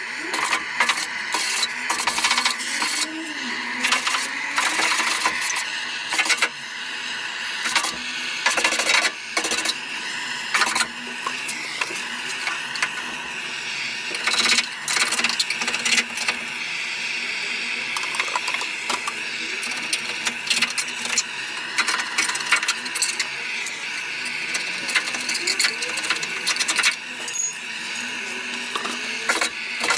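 Handheld butane blowtorch hissing steadily while a metal scraper scrapes heat-softened underseal off a car's underbody, in frequent irregular scrapes and clicks.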